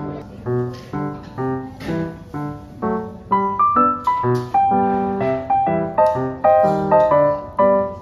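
Background music on keyboard: evenly struck, decaying chords, with a higher melody joining about three seconds in.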